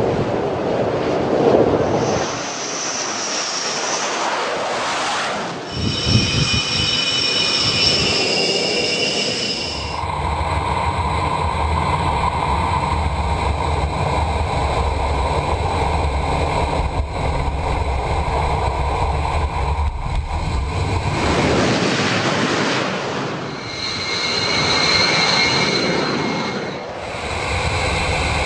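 Sukhoi Su-33 twin-engined jet fighter running: a steady jet roar with a high turbine whine. The sound changes abruptly every few seconds, the whine coming and going.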